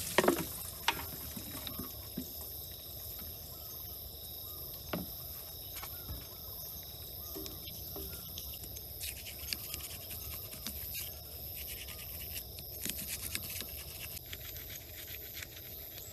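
A splash of water at the start, then a toothbrush scrubbing a cow's teeth and hands rubbing the soapy hide of its muzzle: many short, wet scratching strokes. A steady high-pitched insect drone runs underneath.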